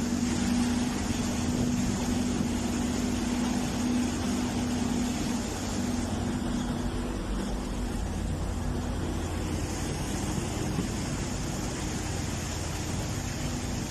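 A motor vehicle's engine running steadily, a low hum with a held tone.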